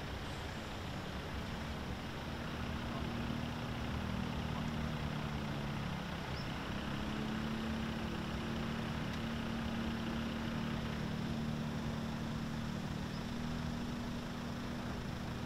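Engine running steadily at low revs: a steady low hum that shifts slightly in pitch about six seconds in.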